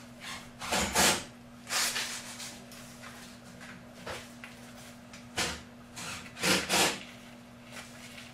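Irregular scrapes and knocks of hand tools and fittings being worked on a water pipe at floor level among broken tile debris, loudest about a second in and in a close pair late on, over a steady low hum.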